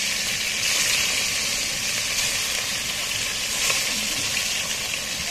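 Small hairfin anchovies (黄鲫) frying in hot oil in an iron wok, with a steady sizzle.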